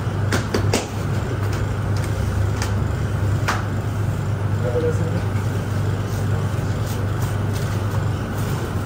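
A steady low mechanical hum, with a few sharp clicks or taps in the first second and another about three and a half seconds in.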